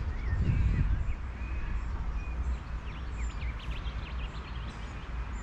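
Birds calling, with many short chirps and quick rising squeaks, over a steady low rumble.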